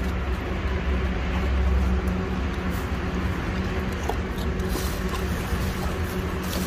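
Sloth bears eating biscuits off a paved floor, with a few sharp crunches as they bite, over a steady low mechanical rumble like a nearby engine running.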